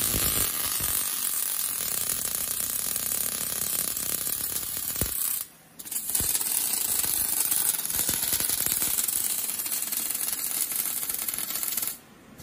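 Arc welding by an automatic machine's multiple torches welding cup locks onto a steel scaffolding tube: a loud, dense crackle that drops out for about half a second near the middle, then resumes and cuts off near the end as the welds finish.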